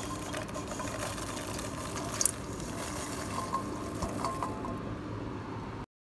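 Popped popcorn being tipped into a wok of hot caramel and turned over with a spatula: a steady hissing, rustling noise with one sharp knock about two seconds in. The sound cuts off abruptly near the end.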